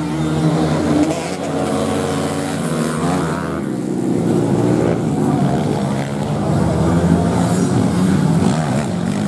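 Several racing motorcycle engines running hard at once on a dirt grasstrack, their pitches rising and falling.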